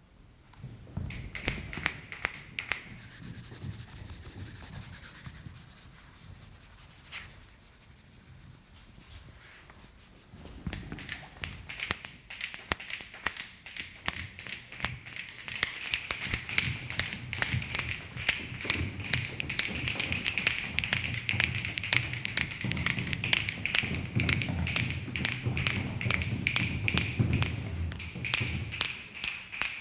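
Improvised sounds made by hand on objects: irregular tapping and clicking with some rubbing. It is sparse at first and grows into a dense, rapid clatter from about eleven seconds in.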